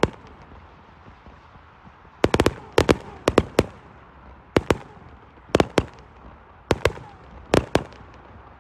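Fireworks going off: after about two quiet seconds, a run of sharp bangs in irregular groups of one to four, about fifteen reports in all.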